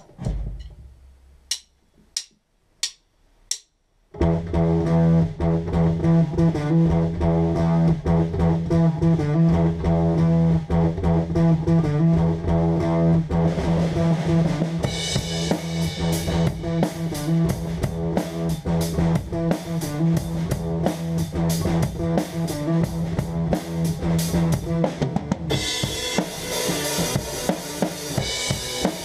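Four evenly spaced clicks count in, then a drum kit and an electric bass guitar start playing together about four seconds in, the bass line strong and steady under the drums. The cymbals grow louder about halfway through and wash over everything near the end.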